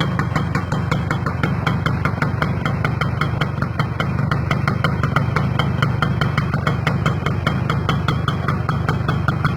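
Kawasaki GTO motorcycle's two-stroke single-cylinder engine idling steadily, with an even, rapid ticking over the low engine note.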